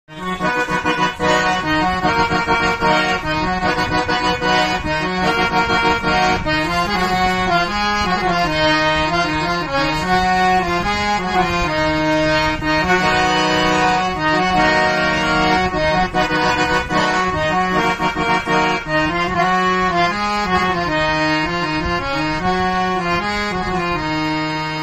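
Xoz nine-stopper harmonium being played: hand-pumped reeds sounding a melody over steady low sustained notes.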